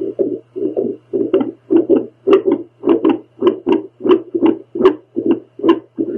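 A woman's heartbeat picked up by a home Doppler: fast, rhythmic whooshing pulses, several a second, over a steady low hum.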